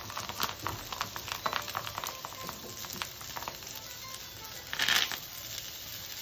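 Hot garlic butter sizzling and crackling in a small pan as a bunch of fresh coriander is dipped into it, with a brief louder hiss about five seconds in.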